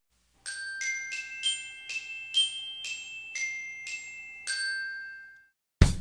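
A short logo jingle of about ten bright, bell-like mallet notes, glockenspiel-like, each struck and left ringing, the last note fading away. Just before the end a loud drum beat cuts in abruptly.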